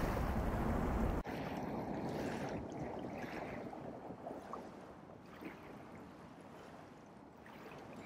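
Wind buffeting the microphone with a low rumble, cut off abruptly about a second in, then a quieter steady outdoor hiss that slowly fades.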